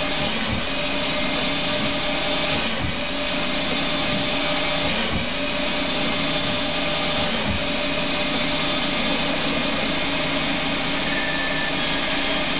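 Hercus PC200 CNC lathe's spindle running while a threading insert cuts an external thread in free-cutting mild steel. The tool makes repeated passes, one about every two seconds, over a steady hiss from a spray mister.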